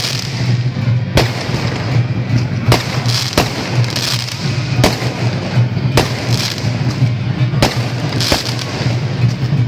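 Firecracker strings going off: a dense crackle with loud single bangs about once a second at uneven intervals, over a steady low hum.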